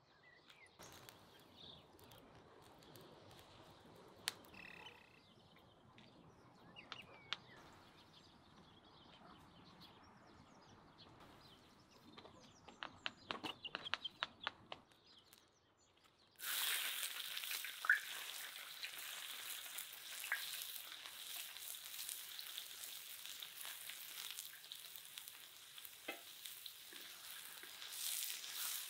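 Diced onion and red pepper sizzling in hot oil in a large steel wok-style pan over a charcoal grill, stirred with a wooden spatula. The sizzle starts suddenly a little over halfway in, as the vegetables go into the pan; before that there are only faint sounds and a few light clicks.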